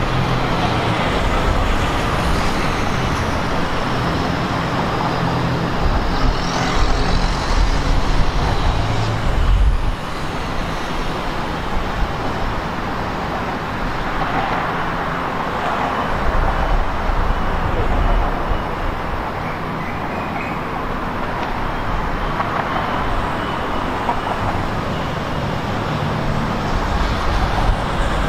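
Steady rumble of road traffic on the elevated expressway overhead, swelling a few times as heavier vehicles pass.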